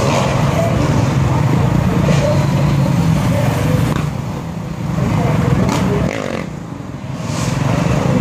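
Dirt bike engines running loud and steady, easing off briefly about six seconds in before coming back up, with voices in the background.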